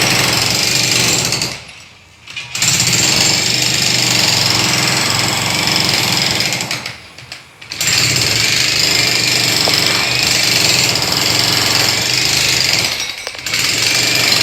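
Miniature motorized drilling machine hammering, running in long stretches and stopping briefly about two seconds in and again about seven seconds in.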